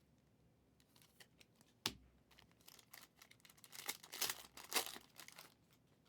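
A trading-card pack's foil wrapper being torn open and crinkled, after a single sharp click about two seconds in; the crinkling peaks about four to five seconds in.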